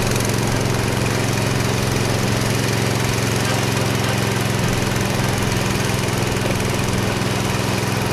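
Small gasoline engine on a floating gold dredge running steadily, driving the dredge's water pump, over the rush of stream water and the sluice outflow splashing.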